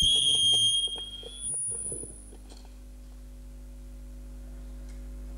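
A loud, steady high-pitched whistle with overtones that stops about a second and a half in, followed briefly by a fainter, higher whistle, then a quieter steady electrical hum.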